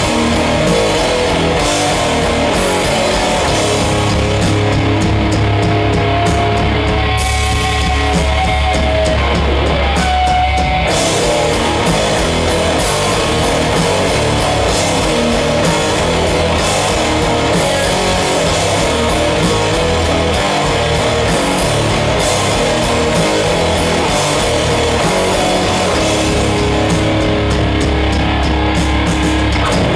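A live heavy metal band playing loud, with distorted electric guitars, bass and drum kit. For a few seconds about a quarter of the way in, the cymbals drop back under held low notes, then the full band comes back in.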